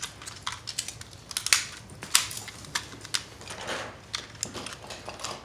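Scattered small plastic clicks and rattles as Beyblade Burst tops and launchers are handled and the tops are fitted onto the launchers.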